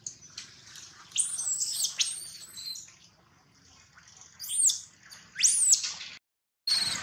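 Baby macaque crying: high-pitched squeals that rise and fall in pitch, one about a second in and two more close together near the end, the last the loudest.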